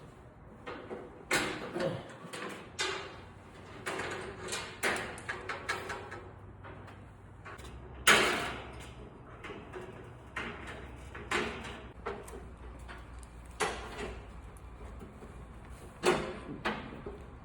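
Irregular knocks, bangs and scrapes of a motorcycle shipping crate being taken apart, the loudest bang about eight seconds in.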